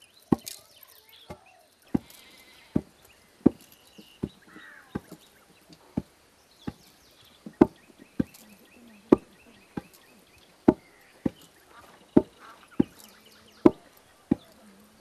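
Long wooden pestles pounding in a mortar: a steady run of dull thuds, a little faster than one a second, some strokes harder than others as two women take turns.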